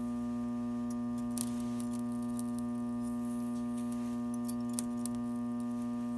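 Modified microwave-oven transformer humming steadily at mains frequency while its two-turn secondary is loaded by a thin steel wire shorted across the output leads, with a few faint scattered crackles from sparking at the wire's contacts.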